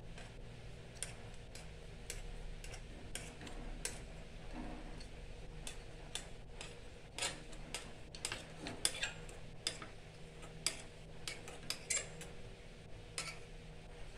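Metal spatula tapping and scraping against a metal impression tray and soft plaster of Paris: light, irregular clicks that come more often in the second half, over a faint steady hum.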